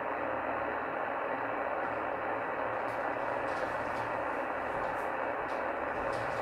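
Steady hiss of band noise from a portable shortwave receiver tuned to 27.385 MHz, CB channel 38, in lower sideband mode, with no station coming through. A few faint clicks come in the second half.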